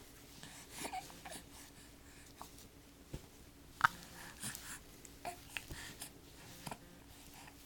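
A baby hiccupping: a series of short, sharp hics with small breathy vocal sounds between them, the loudest about four seconds in.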